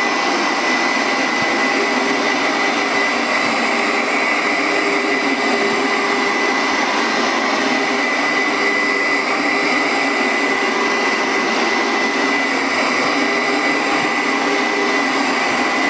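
Upright carpet steam cleaner running steadily: a loud, even rush of suction with a constant high whine.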